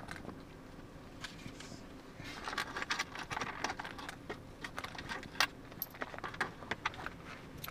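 A monkey handling her zippered pocketbook: small jingling clicks and rattles from the zipper pulls and the contents. They grow busier about two seconds in, with one sharper click around the middle.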